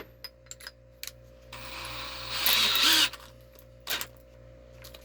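A taper bit being fitted into a power drill: a few small handling clicks, then about a second and a half of rattling as the drill's chuck is turned tight, and one more click near the end.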